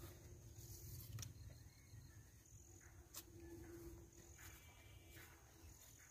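Near silence: a faint low rumble with two soft clicks, about a second in and about three seconds in.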